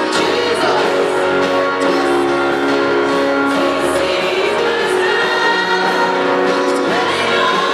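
Gospel music: singing, with held notes and several voices, over instrumental accompaniment.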